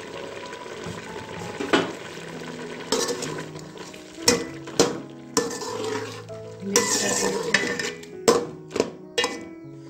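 A metal slotted spoon stirring and scraping through thick beef curry in a karahi, knocking and clinking against the pan at irregular moments over a light frying sizzle.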